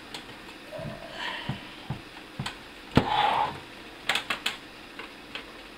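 Clicks and knocks of a small HTPC computer case's drive cage and bay plate being worked loose by hand, with one loud knock about three seconds in and a quick run of clicks about a second later.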